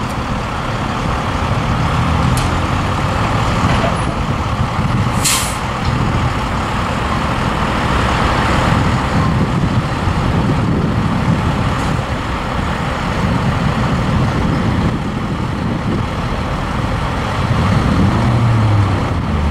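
Heavy truck engine running with a steady low rumble, and a short hiss of air brakes releasing about five seconds in.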